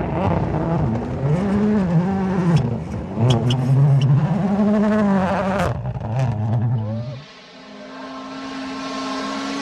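A motor vehicle's engine revving, its pitch rising and falling again and again, with a few sharp clicks. About seven seconds in it drops away, leaving a steadier, higher engine note that holds.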